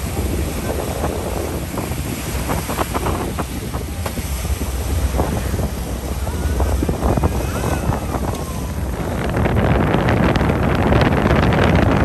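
Wind buffeting the microphone aboard a boat at sea, with waves splashing and a steady low rumble; the noise grows louder about nine seconds in.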